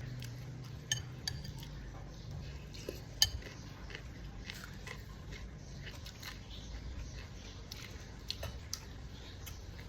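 Eating utensils clinking against a dish a few scattered times, the sharpest clink about three seconds in, over a low steady hum.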